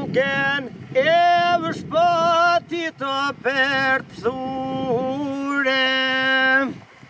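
A man singing solo in long held notes, with short breaks between phrases and bends in pitch. The singing stops near the end.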